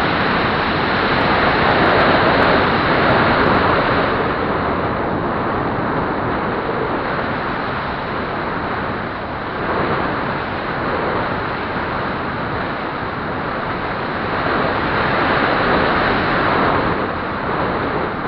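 Air rushing over the microphone of a camera mounted on a Flyzone Calypso RC plane in flight: a steady noisy rush that swells and eases as the plane banks, loudest a couple of seconds in and again near the end.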